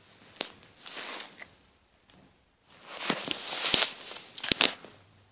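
Rustling handling noise against the microphone in two stretches, with a few sharp clicks and knocks near the end, as the camera is picked up and fumbled with.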